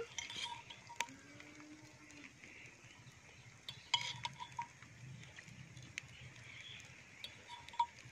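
Oil heating in a steel kadai over a wood fire: a faint steady sizzling hiss, broken by a few sharp crackles and clicks, one about a second in and others about four, six and eight seconds in.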